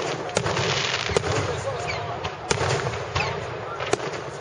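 Aerial fireworks bursting: a series of sharp bangs and crackles, about five loud reports spread through the few seconds, over a steady background rumble.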